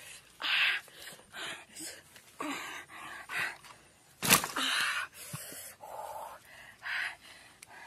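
A run of short, breathy gasps and puffs, about a dozen, with one sharp knock a little past the middle.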